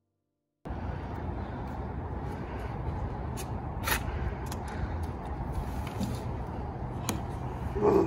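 Steady low outdoor rumble that starts abruptly after a moment of silence, with a few faint clicks and a brief louder sound near the end.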